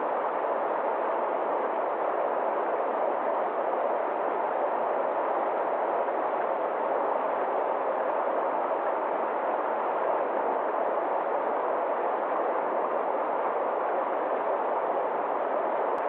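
Forest stream rushing over small rocky cascades: a steady, even rush of water that does not change.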